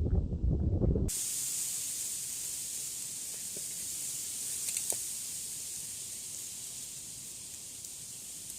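Low rumbling noise that cuts off suddenly about a second in, giving way to a steady high hiss that slowly fades, with a few faint ticks in the middle.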